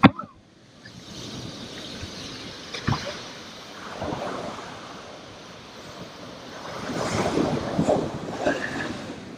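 Ocean waves washing in and wind buffeting the microphone, swelling loudest in the second half, with a single knock about three seconds in.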